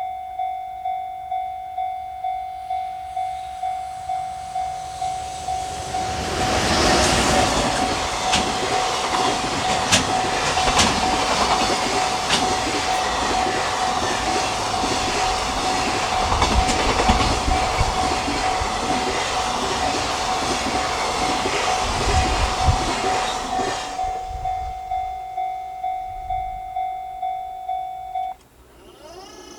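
A container freight train hauled by an EH500 electric locomotive passes at speed, its wheels clattering over the rail joints for about eighteen seconds. Throughout, a level crossing alarm dings steadily about twice a second, and it stops shortly before the end.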